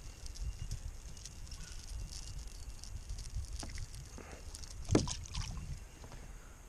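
Fishing kayak on the water: a low steady rumble with faint water movement around the hull, and a few small knocks about five seconds in.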